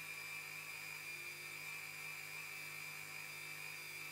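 Flexible-shaft rotary tool running steadily at one speed, a low hum with a high whine over it, while it polishes a hardened-steel rivet setter tip with green compound.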